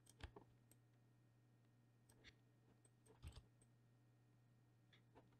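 Near silence with a few faint computer mouse clicks and a faint steady low hum.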